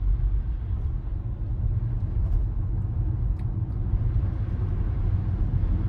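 Steady low tyre and road rumble heard inside the cabin of a Tesla Model Y, an electric car with no engine note, rolling along a snowy street.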